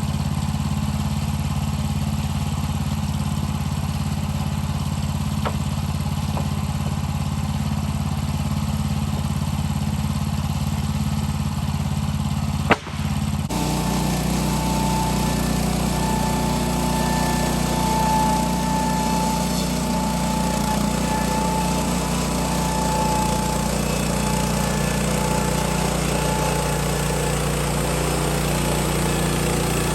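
Sawmill engine running steadily while boards are ripped into purlins. A sharp click about 13 seconds in, after which the sound changes abruptly and a steady whine joins the engine.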